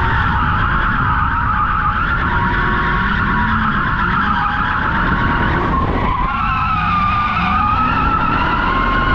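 Ford Crown Victoria's tyres squealing continuously as the car drifts, over the steady run of its V8 engine. The pitch of the squeal shifts and wavers about six seconds in.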